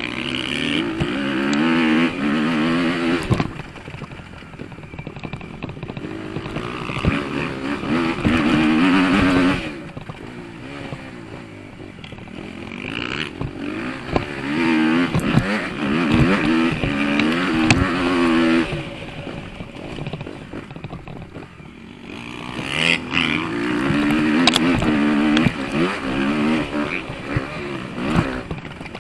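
Motocross bike engine pulling hard, its pitch climbing again and again in four loud stretches, with the throttle backed off in between.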